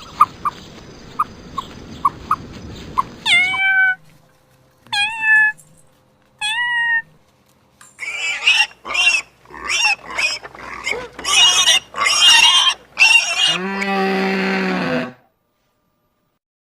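A series of animal calls. There are small clicks for the first few seconds, then three short pitched calls that each drop and then hold. A run of rough, raspy calls follows, and near the end comes one lower, drawn-out call.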